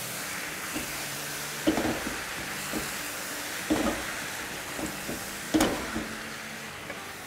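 Vegetables, spinach and fenugreek sizzling steadily in oil in a large wok while a utensil stirs them, knocking against the wok three times and tapping lightly in between.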